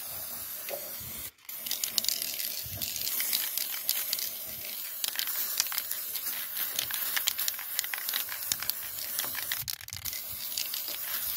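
Aerosol spray-paint can hissing in long, steady sprays, with a brief break about a second in.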